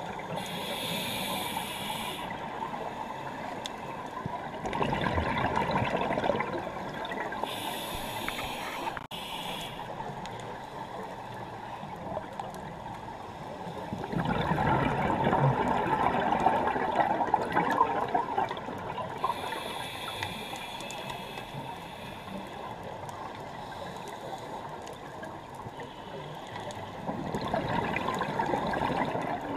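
A scuba diver breathing through a regulator underwater: each breath a short hiss of inhaled air, followed by a longer, louder rush of bubbling exhaled air, a few slow breaths in all.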